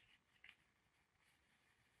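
Faint rustling of a paper towel rubbed over a small metal drill part held in rubber gloves, with a slightly sharper scrape about half a second in.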